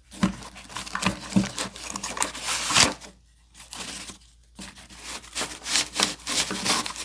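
Nylon chest rig straps and plastic clips being handled: rustling, rubbing and scraping with scattered clicks, quieter for about a second and a half around three seconds in.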